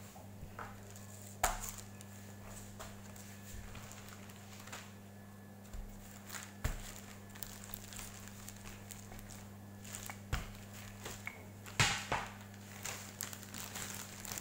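Wooden rolling pin knocking and rolling on a wooden board as dough is rolled flat inside a plastic bag, with rustling of the plastic. The knocks are scattered, about a dozen, over a steady low hum.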